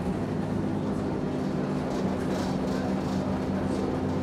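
Cabin sound of a Scania K270UB city bus under way: its rear-mounted diesel engine runs with a steady hum under road and body noise.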